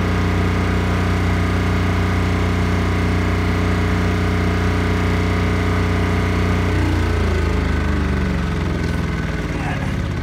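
Engine of an engine-driven arc welder running at a steady speed, then slowing about seven seconds in and settling to a lower idle as the welding stops.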